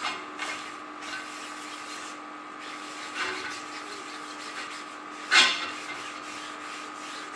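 A napkin rubbing oil into a cast iron frying pan, steady wiping strokes over the surface and round the edges while seasoning it, with one brief louder scrape about five seconds in.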